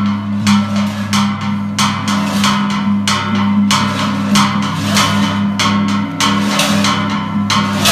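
Large hanging Balinese gongs struck with padded mallets, ringing on in a steady low hum that swells and fades. Over it runs an even beat of sharp percussive strokes, about three a second.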